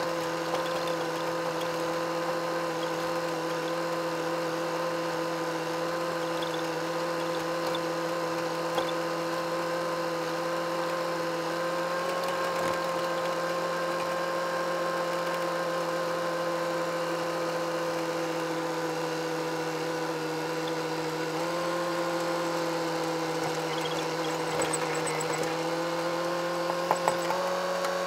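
Massey Ferguson 265 tractor's three-cylinder diesel engine running at steady working revs while driving the mounted Taral 400 sprayer during spraying: a steady droning hum whose pitch steps up slightly about two-thirds of the way through, with a few light knocks near the end.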